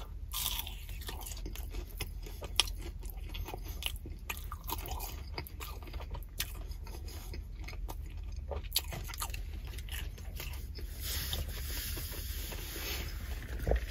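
Close-up chewing of a breaded, fried mozzarella stick: wet mouth sounds and many small crunchy clicks, over a low steady hum.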